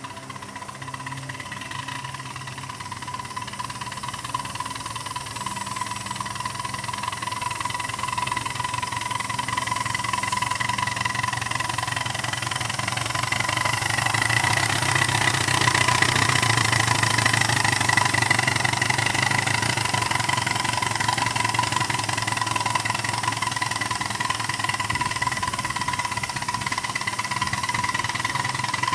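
7¼-inch gauge miniature train running on garden track: a steady mechanical running sound with a constant high whine, growing louder as it approaches and loudest about halfway through.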